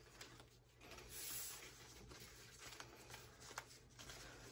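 Near silence, with faint rustles and light ticks of trading cards being picked up off a desk.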